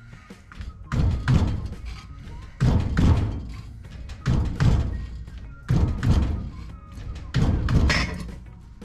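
Hand-operated metal shrinker, its handle slapped down five times about every one and a half seconds. Each stroke is a heavy double thud as the jaws grip and shrink the edge of a steel strip.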